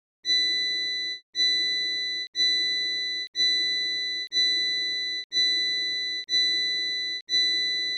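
Electronic beeping: eight identical high-pitched beeps, each lasting nearly a second, repeating about once a second like an alarm.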